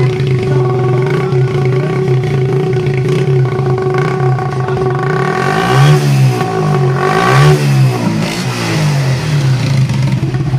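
Honda CG125's single-cylinder four-stroke engine idling through a modified silencer, blipped twice in quick succession about six and seven and a half seconds in, the pitch rising and falling back to idle each time.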